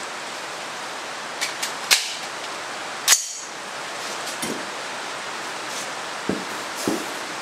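Clicks and one sharp metallic clack, about three seconds in, from an AR-15 rifle being handled. After it come a few dull knocks as the shooter gets down prone on a concrete floor, all over a steady hiss.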